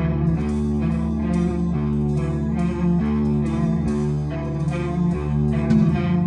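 Background rock music led by guitar, with bass and a steady beat.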